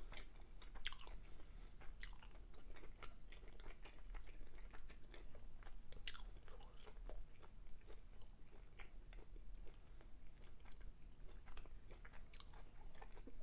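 A person chewing a mouthful of food with the mouth closed, faint soft irregular clicks and smacks close to the microphone.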